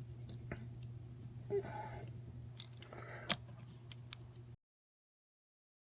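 A screwdriver prying apart a diecast toy car's metal body and base: small metal clicks, scrapes and a couple of sharper ticks. The sound cuts off abruptly near the end.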